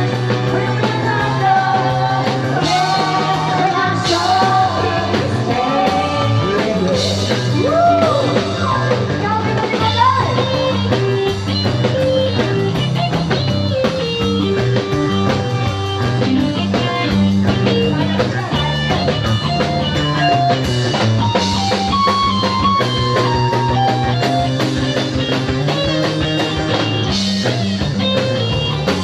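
Rock and roll song with singing over electric guitar and drum kit; the vocal drops out about ten seconds in and the guitar-led band carries on.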